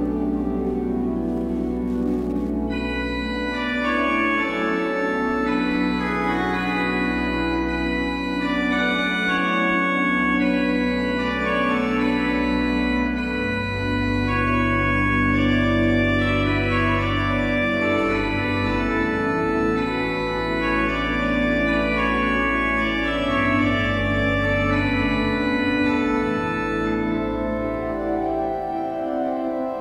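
Pipe organ playing slow held chords in a reverberant cathedral, with the deep bass notes changing every few seconds.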